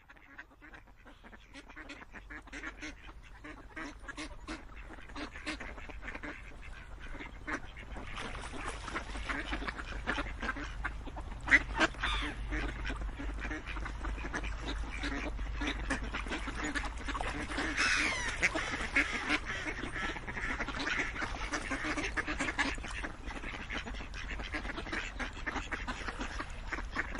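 A flock of ducks quacking continuously, many calls overlapping, fading in over the first several seconds, with one sharp click about eleven seconds in.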